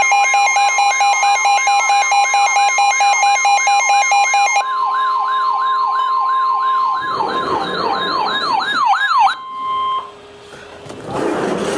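Layered emergency alert sounds: a steady high warning tone under a siren yelping rapidly up and down. For the first few seconds a warbling electronic alarm also sounds. Everything cuts off sharply about nine and a half seconds in.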